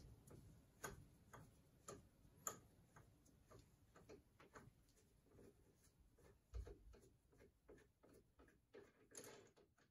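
Near silence with faint, irregular clicks and ticks, about two a second, from tools being handled at the mill. There is a low knock about six and a half seconds in.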